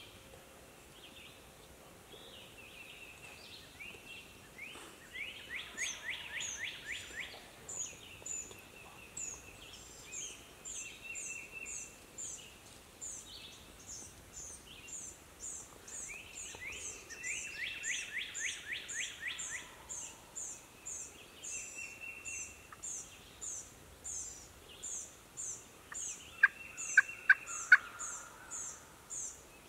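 Wild turkey gobbling twice, each a rapid rattling run of notes, the first about five seconds in and the second just past the middle. A high chirp repeats about twice a second throughout. A few sharp, loud short notes come near the end.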